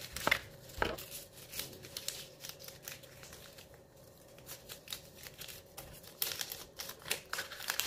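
Folded paper banknotes crinkling and rustling as they are unfolded and handled, with two soft knocks within the first second. A denser run of small clicks and scrapes follows near the end, as a hand works inside the tin coin bank.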